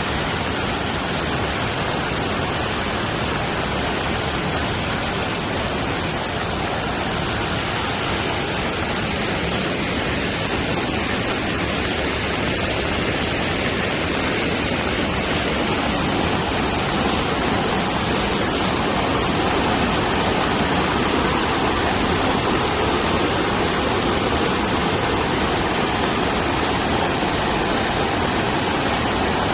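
Mountain stream rushing in heavy rain: a steady, dense hiss of running water and rainfall, a little louder in the second half.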